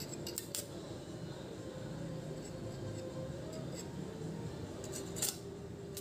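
A few light metallic clicks and scrapes, about half a second in and again about five seconds in, as a stick-welding electrode is set against the steel bearing boss of an Aqua washing-machine gearbox, over a low steady hum.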